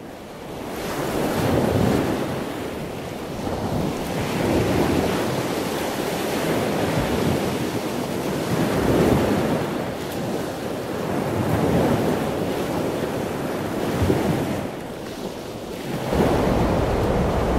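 Ocean surf breaking and washing ashore, a steady rushing noise that swells and fades every couple of seconds, with wind buffeting the microphone. About 16 seconds in the surf noise steps up and grows fuller.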